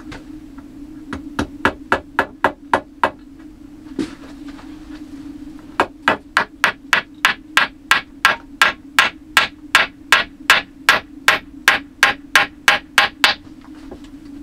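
Hammer blows in quick, regular strokes, about three a second: a short run of about eight, one single blow, then a longer run of about twenty. A steady low hum runs underneath.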